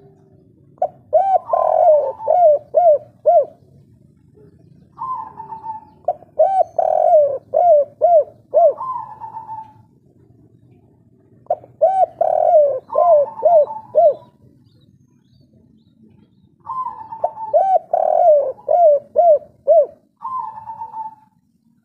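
Spotted dove singing a 'kuk 3' type song: four cooing phrases, each a quick run of five or six low coos framed by higher drawn-out notes, with pauses of a second or two between phrases. Another phrase begins near the end.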